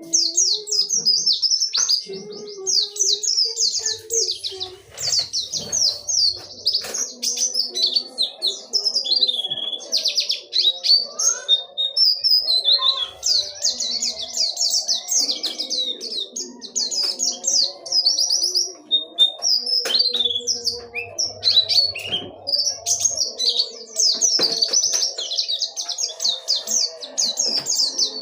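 White-eye (pleci) singing a long, rapid rolling song of high-pitched twittering trills, nearly without pause, with only short breaks about twelve and twenty seconds in.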